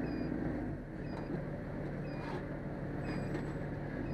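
Fire truck engine running steadily, with faint short high chirps about once a second.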